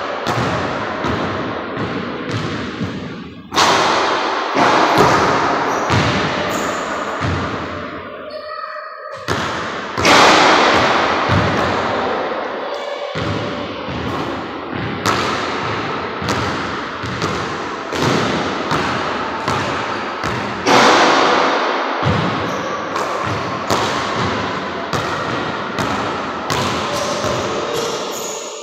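A basketball thudding again and again in a large, echoing gym: bouncing on the hardwood floor and hitting the backboard and rim on shots. Each thump rings on in the hall's reverberation, with the loudest hits about three and a half, ten and twenty-one seconds in.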